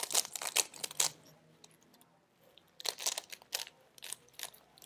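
Plastic Rubik's cube being turned fast during a speed-solve: quick flurries of clicking and clacking as the layers are twisted, in short bursts with brief pauses between.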